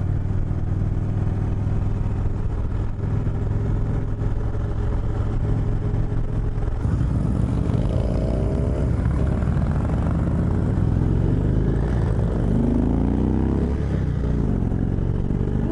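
2018 Indian Chieftain's V-twin engine running steadily on the move, picking up in pitch as it accelerates about halfway through and again near the end.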